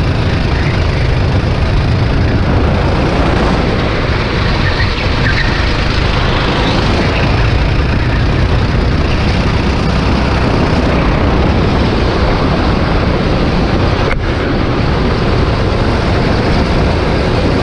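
Racing kart's engine running steadily at speed, heard through the onboard camera's microphone as a loud, continuous rush with heavy low rumble. A momentary dropout comes about fourteen seconds in.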